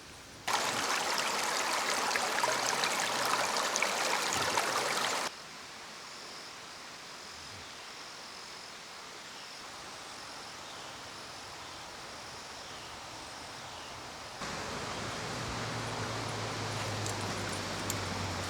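Rushing stream water, a steady hiss. It is loud for the first few seconds, drops suddenly to a softer flow, then steps up again near the end, where a low steady hum joins it.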